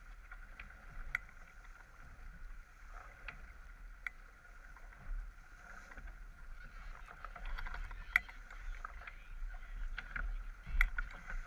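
Water rushing and foaming along the hull of a J24 sailboat heeled under sail, a steady wash, with scattered sharp clicks and knocks, the loudest about eight and eleven seconds in.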